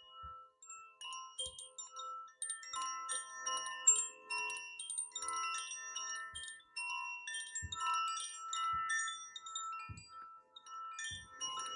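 Wind chimes ringing quietly: many short, high bell-like notes at different pitches, struck at random and overlapping, with a few faint low knocks among them.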